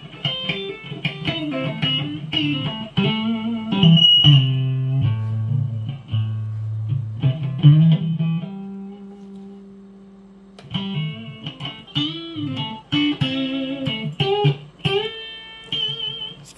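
Electric guitar played through the repaired Mesa M-Pulse 600 amplifier as a power test: single plucked notes, several bent up and down in pitch, and one note held and left to ring out and fade about eight seconds in.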